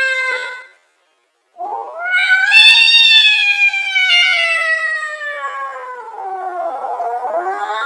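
Angry cat caterwauling: one held yowl cuts off just under a second in, then after a short gap a long drawn-out yowl rises and slowly sinks over several seconds, and a second yowl rises near the end.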